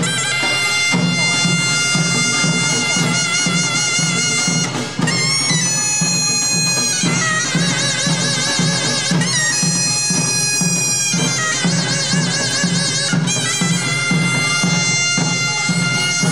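A taepyeongso, the Korean double-reed shawm, plays a nasal melody of held notes, some with wide vibrato, over a steady drumbeat in a pungmul folk band. The shawm dips briefly about five seconds in.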